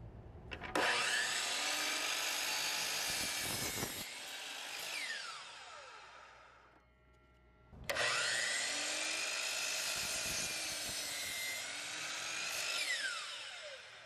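Miter saw making two angle cuts through a pressure-treated pine 2x4. Each time, the motor starts, the blade cuts through the wood, and then it winds down with a falling whine. The second cut begins about halfway through.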